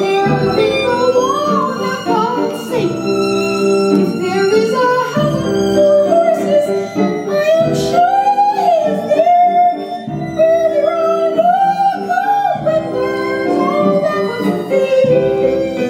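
Live ensemble music: a wavering melody line over sustained string chords.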